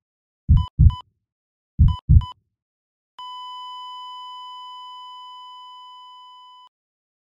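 Synthesized heart-monitor sound effect: two double heartbeat thumps, each with a short high beep, then one long steady beep that slowly fades over about three and a half seconds and cuts off, like a flatline.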